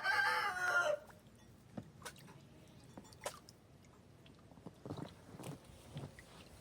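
A rooster crowing, the end of a crow that cuts off about a second in. Faint scattered clicks and soft crunching follow.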